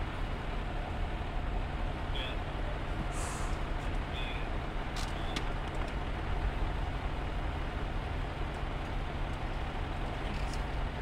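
Engine of a large vehicle idling with a steady low hum, with a couple of faint short chirps and clicks over it.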